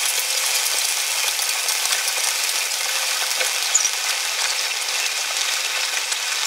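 Stick (shielded metal arc) welding with a 1/8-inch E7018 electrode on reverse polarity: the arc gives a steady, even crackling sizzle as a bead is run along the steel plate's groove.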